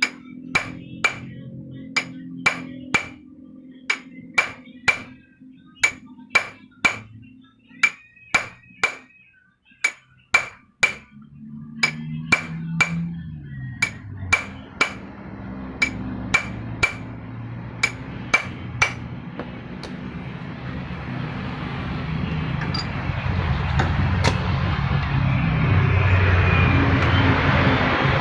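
Hammer tapping on a metal motorcycle part, about two strikes a second, each with a short metallic ring, with a brief pause partway through. The tapping stops about two-thirds of the way in, and a rising mechanical rumble, like a passing vehicle, builds toward the end.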